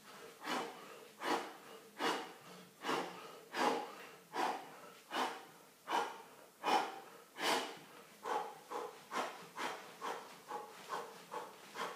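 A man's hard breathing under exertion, a sharp forceful puff of breath at a steady rhythm of about one every 0.8 s. About eight seconds in it quickens to shorter, lighter breaths, nearly three a second.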